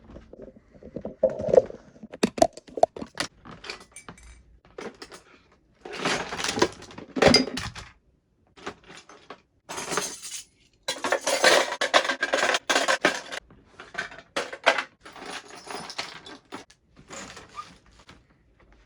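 A table being fetched and set up: repeated clattering knocks and clinks, with longer stretches of scraping and rattling, the loudest about six seconds in and again from about ten to thirteen seconds.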